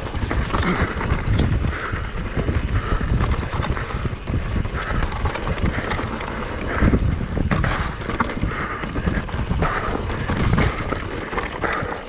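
Wind buffeting the microphone of a camera on a mountain bike descending a rough dirt singletrack, with the tyres rolling over the trail and the bike rattling and knocking over bumps.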